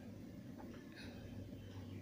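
Faint scraping and light taps of a steel spoon against an appe pan as a sabudana appe is turned over, over a low steady hum.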